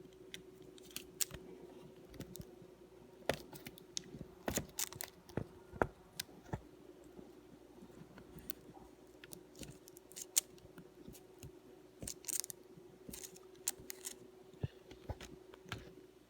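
Irregular small clicks and taps of laptop parts being handled during an LCD screen swap, over a faint steady hum.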